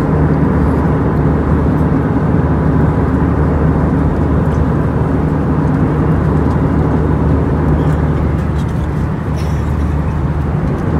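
Steady drone of an Airbus A320 heard from inside the cabin: jet engines and airflow, with a low hum underneath. It eases slightly near the end.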